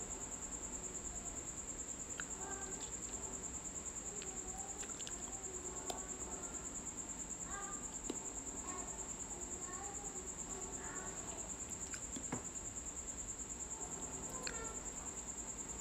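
A steady high-pitched trill, with faint voices in the background and a few short, light clicks of a metal spatula working buttercream against the foil-covered cake board.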